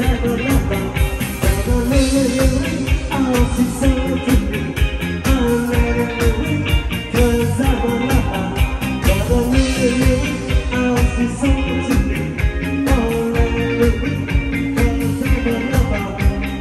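Live band playing an upbeat pop song: steady drum beat, electric bass and keyboards under a male lead vocal sung through a microphone and PA.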